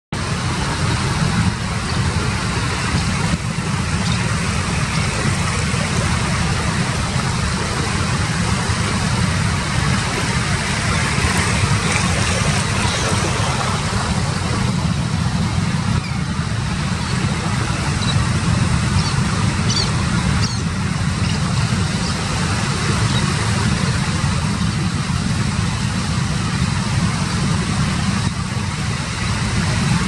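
Steady rumbling wind on the microphone over the wash of ocean surf breaking on the beach, with a few faint, short, high bird calls about two-thirds of the way through.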